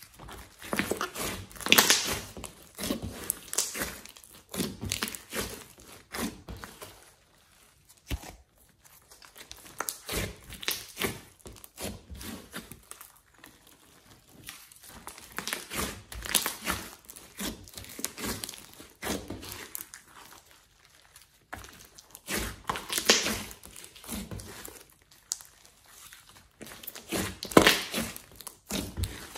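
Hands squeezing, folding and pressing a large blob of glossy slime mixed with clay and floam, giving irregular bursts of sharp sticky pops and clicks. The loudest bursts come about two seconds in and twice near the end.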